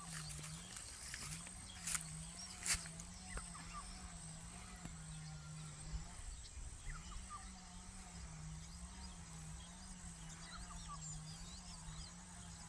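Rural outdoor ambience: a steady high insect drone with scattered short bird chirps over a low wavering hum that breaks off briefly about six seconds in. A few sharp clicks fall in the first three seconds.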